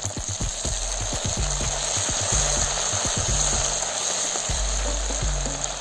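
Sliced onions, peas, coriander and mint sizzling steadily in hot oil in a steel pot while a wooden spatula stirs them, with low background music underneath.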